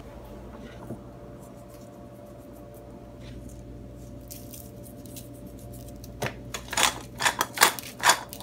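A run of sharp, crisp clicks from a hand pepper grinder being twisted, starting about six seconds in, over a steady low hum.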